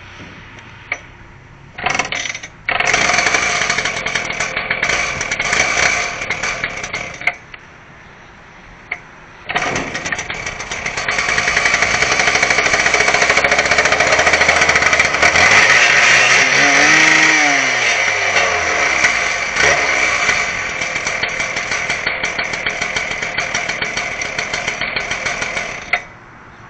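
A loud power tool running in two long stretches: from about two seconds in until about seven seconds, then again from about nine and a half seconds until near the end.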